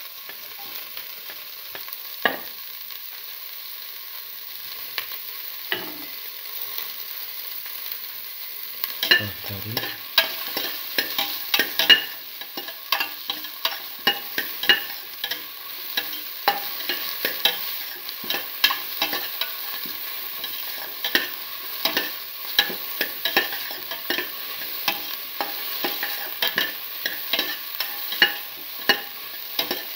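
Beef pieces with onion, tomato, carrot and red chillies sizzling in a hot metal pot, with a utensil scraping and knocking against the pot as they are stirred. The stirring is occasional at first, then quick and continuous from about nine seconds in.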